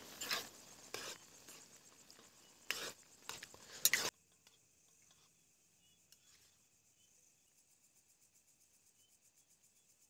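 A spoon stirring noodles in a cooking pot, scraping against the pot in a few short strokes over the first four seconds, then near silence.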